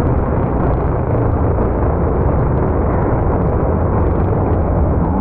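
A pack of supercross dirt bikes racing together, their engines blending into one loud, steady wall of noise with no single bike standing out.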